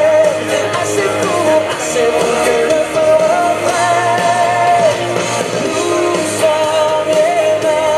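A song with a singing voice over instrumental backing.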